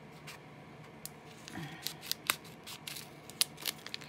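Non-stick scissors cutting through a paper package wrapping, with several sharp snips, mostly in the second half.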